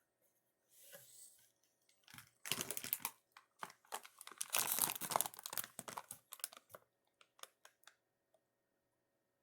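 Plastic packaging being handled, crinkling and rustling for a few seconds, then a scatter of light clicks and taps that die away.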